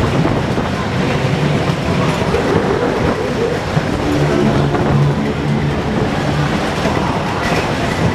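Disco Train fairground ride running at speed, heard from a seat on board: a loud, steady rumble and rattle of the cars on the track.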